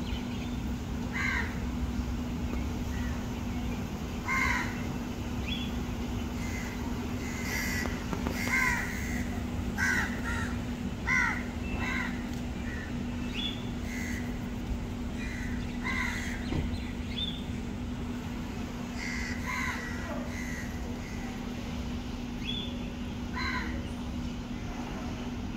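Birds giving short calls again and again, several in quick succession around the middle, over a steady low hum.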